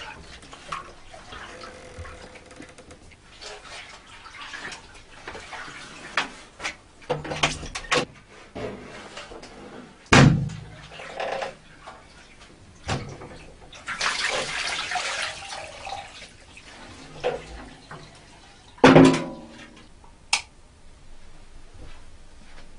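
A large metal washbasin being handled, with scattered knocks and clanks; two loud ringing clanks, about ten seconds in and again near the end. About two seconds of pouring water comes midway.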